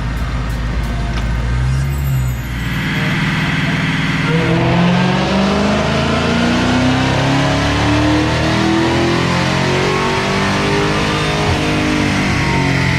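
Supercharged 6.2-litre HEMI V8 of a 2020 Dodge Charger Hellcat Widebody run at wide-open throttle on a chassis dyno for a baseline power pull with the stock intake. The engine note climbs steadily in pitch for several seconds, starting about three seconds in.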